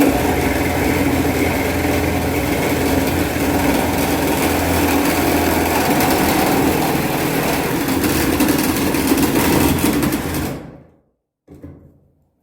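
Milwaukee M18 Fuel cordless reciprocating saw with a 9-inch Spider nail/wood blade cutting through metal pipe under only the saw's weight. It runs steadily at full speed for about ten seconds, starting suddenly, then winds down and stops near the end.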